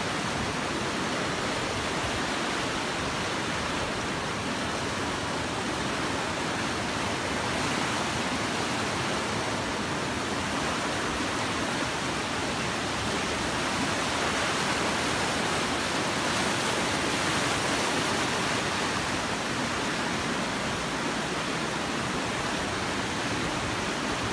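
A river in flood rushing and churning through white-water rapids: a steady, even rush of water.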